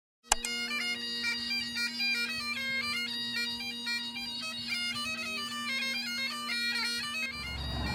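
Bagpipes playing a quick melody over a steady drone, starting abruptly just after a cut. The drone stops near the end as a noisy hiss comes in.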